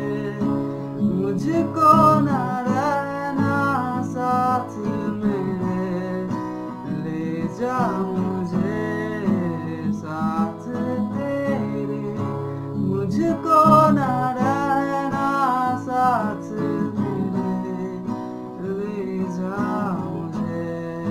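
A man singing a Hindi ballad in phrases over his own strummed acoustic guitar.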